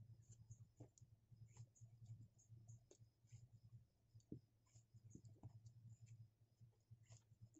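Near silence with faint, irregular light clicks and rustles of hands working macrame cord, over a low steady hum.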